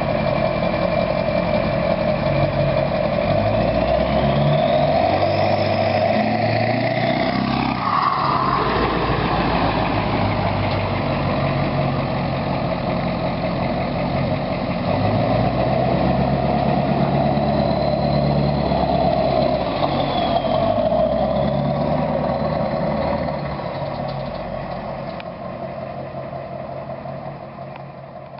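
Straight-piped Ford 7.3 Powerstroke V8 turbo-diesel running and revving, with a high turbo whistle that rises and falls. The sound fades away over the last few seconds.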